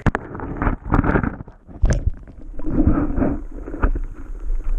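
Lake water sloshing and gurgling around a camera held under the surface, heard muffled through the submerged microphone as a series of irregular low rushes.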